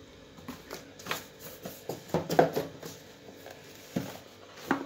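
Cardboard product boxes being handled and moved: a series of light knocks, taps and scrapes, busiest and loudest about two seconds in, with two sharper knocks near the end.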